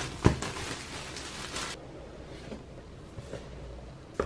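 Cardboard MacBook Pro retail box being opened by hand. There is a thump about a quarter second in, then about a second and a half of sliding, rustling noise as the lid comes off. After that come quieter handling sounds and a light tap near the end as the paper-wrapped laptop is lifted out.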